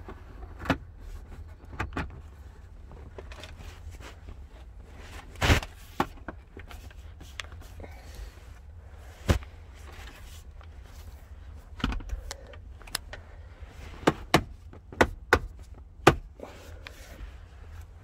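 Hard plastic clicks and knocks as the rear dash vent and USB port panel of a Tesla Model 3 is pressed by hand back into the console and its trim clips snap into place. About a dozen sharp clicks, spaced out at first and coming several in quick succession near the end.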